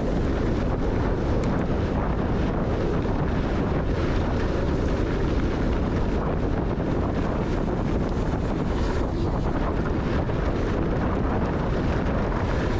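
Wind rushing over the microphone and the steady rumble of a mountain bike riding fast down a dirt trail.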